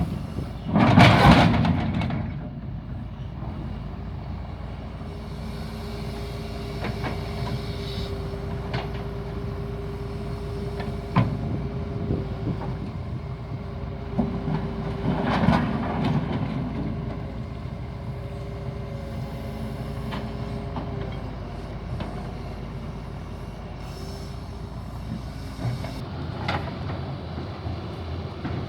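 Heavy diesel engine running steadily, with a steady whine through much of the middle. Two loud bursts of noise, about a second in and about halfway, and a sharp knock between them.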